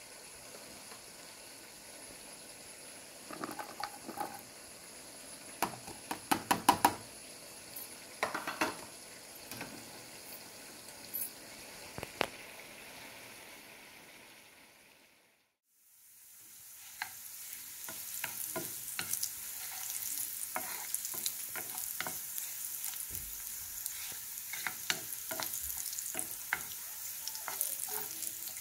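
Panch phoron sizzling in hot oil in a nonstick frying pan, with several sharp knocks in the first half as sliced garlic goes in. After a short fade to silence midway, louder, busier sizzling as the garlic fries for the dal's tempering, with the small clicks and scrapes of a wooden spoon stirring it.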